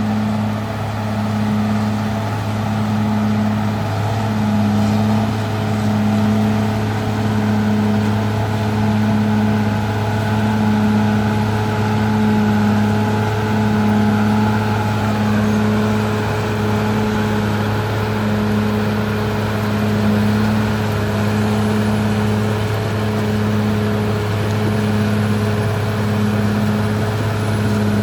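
Caterpillar D6R XL bulldozer's diesel engine running steadily: a constant low drone with a regular pulse about once a second.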